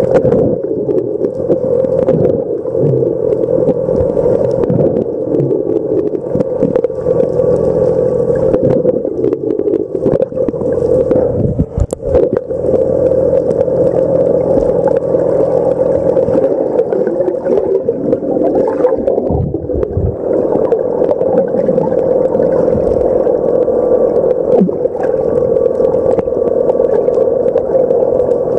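Boat engine heard underwater: a loud, steady hum with a few held tones and occasional short knocks.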